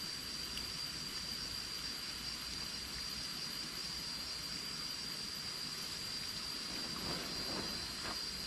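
A steady, high-pitched insect drone over an even hiss, holding one pitch without a break, with faint low sounds about seven seconds in.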